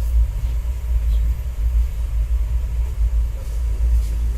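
Passenger train running, a steady low rumble.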